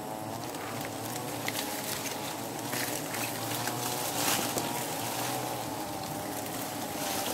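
A mass of wild honeybees buzzing around their open comb, a dense, wavering drone of many wingbeats, the colony stirred up by smoke. Scattered rustles of leaves and handling are heard over it.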